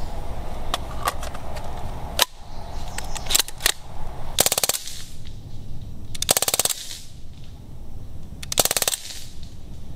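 Crosman DPMS Panther CO2 BB rifle firing three short full-auto bursts about two seconds apart, each a rapid rattle of shots lasting under half a second. Before the bursts come a few sharp clicks as the magazine is seated and the rifle is handled.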